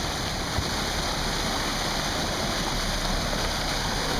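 Steady rush of churning white water along a boat's hull, a continuous noisy wash, with a brief knock about half a second in.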